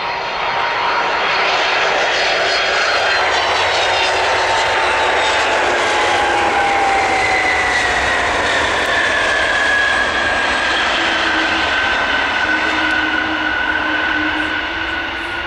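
Turbofan engines of a twin-engine widebody cargo jet landing and rolling out on the runway: a loud, steady jet rush with whining tones that slide down in pitch as it passes, easing off near the end.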